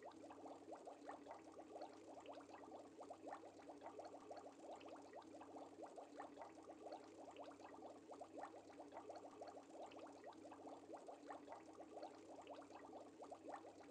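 Faint, continuous bubbling of water, a dense irregular patter of small pops like air bubbles rising in an aquarium, over a low steady hum.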